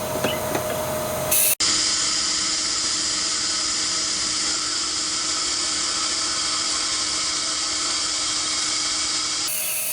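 Compressed air hissing steadily as it is blown into a dried-out lawnmower gas tank to clear out the old fuel residue, with a sudden break about a second and a half in.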